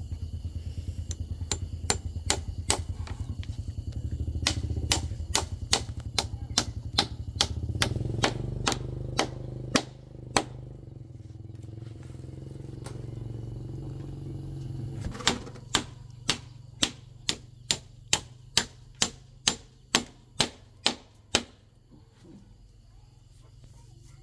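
Claw hammer striking repeatedly to fasten black shade netting to a wooden frame rail, in two runs of steady blows about two to three a second with a pause between them. A low engine runs underneath during the first half.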